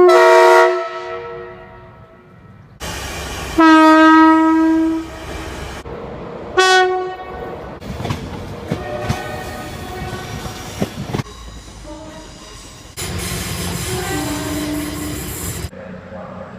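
A run of train horn blasts from different trains, spliced together with abrupt cuts: a blast at the start, a longer one about four seconds in, a short one around seven seconds, then a passing train with clicking wheels over rail joints, and another horn blast near the end.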